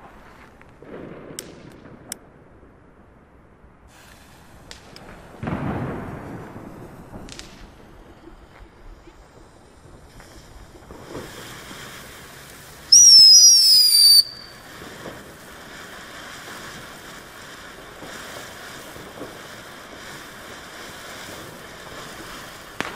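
Ground fireworks fountain spraying sparks with a steady hiss, setting in about ten seconds in, with a loud high whistle lasting about a second soon after it starts. Before that, scattered firecracker cracks and a dull boom from other fireworks.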